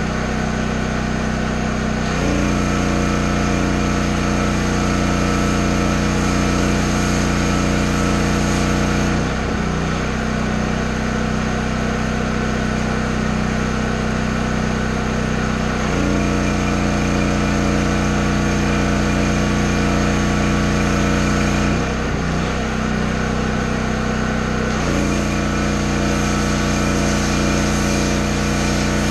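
Small engine running steadily, its pitch dipping and settling several times as the load on it changes.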